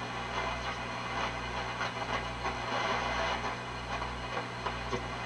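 Shortwave reception from a Grunow 1191 all-wave tube radio's speaker: steady static and hiss with a faint voice breaking through, over a low hum that dips about once a second.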